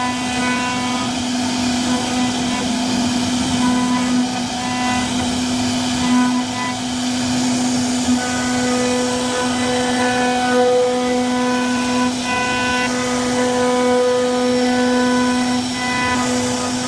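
CNC router spindle running with a steady whine while the bit cuts into wood, with cutting noise underneath.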